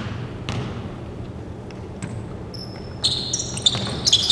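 A basketball bounces once on the hardwood court, about half a second in, during a free-throw routine. From about three seconds in, a quick run of sneakers squeaking on the floor follows.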